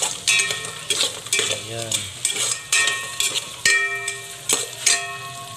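A metal spoon scraping and knocking against an aluminium pot as sliced garlic and onion are stirred and sautéed, with a steady sizzle underneath. The pot rings briefly after the harder knocks.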